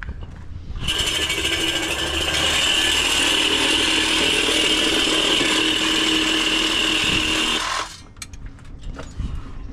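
A power tool running steadily for about seven seconds with a high whine, starting about a second in and cutting off suddenly near the end.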